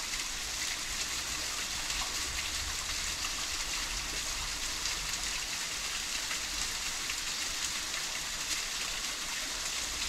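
Steady hiss of water patter with faint ticks and a low rumble underneath.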